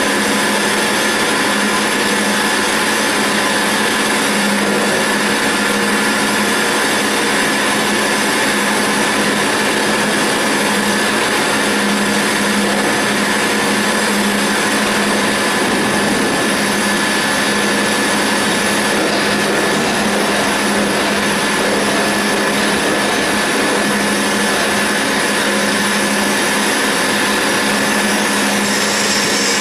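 CNC roll turning lathe cutting grooves into a steel roll: a steady machine drone with a low hum and a high whine.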